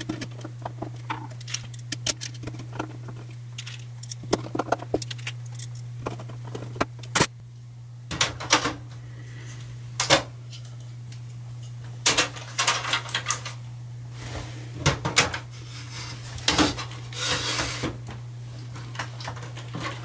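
Irregular metallic clicks, clinks and rattles of a screwdriver, small case screws and a metal drive bracket as a hard drive is mounted in a Power Macintosh 7500's lower drive bay. A steady low hum runs underneath.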